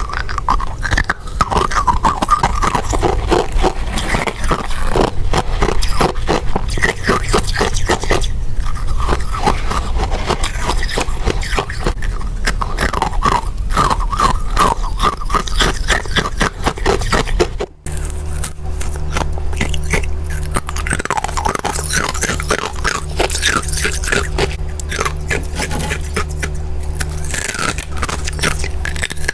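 Freezer frost being bitten and crunched in rapid succession, a dense run of crisp scraping crunches with a steady low hum underneath. About two-thirds of the way in the sound drops out for an instant and the hum changes, as at a cut.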